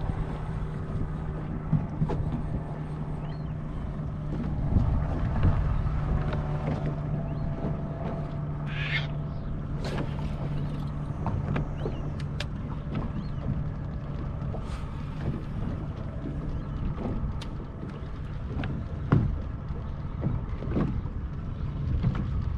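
Boat engine running with a steady low hum, with scattered knocks and clicks over it.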